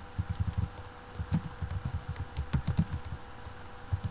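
Typing on a computer keyboard: quick flurries of keystrokes with short pauses between them.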